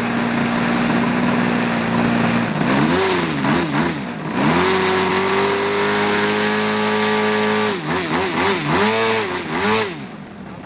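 Petrol engine with tuned pipes (a GP 76) on a Pilot RC Laser 88" aerobatic model plane, run up on the ground. It idles steadily, then is revved in quick blips, held at high revs for about three seconds, and blipped several more times. Near the end it drops back to a low idle: a pre-flight throttle check.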